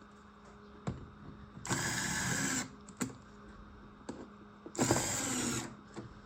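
Electric screwdriver run in two short bursts of about a second each, driving screws back in, with a few small clicks between them.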